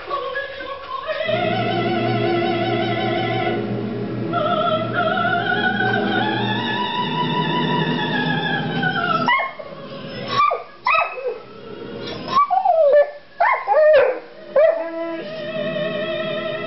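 Recorded opera: a singer's voice with vibrato over orchestral accompaniment. About nine seconds in, a bullmastiff puppy breaks in with a string of short, high whining yips and cries that rise and fall, louder than the music, in reaction to it. A held sung note returns near the end.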